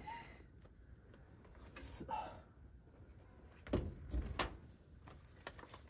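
Clunks of parts being handled in an old pickup truck's cab during dashboard removal: a short scrape about two seconds in, then two heavy thuds close together about four seconds in.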